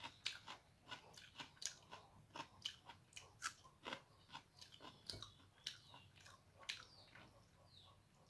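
Close-up eating sounds of rice and curry eaten by hand: a run of soft, wet chewing clicks, about two a second.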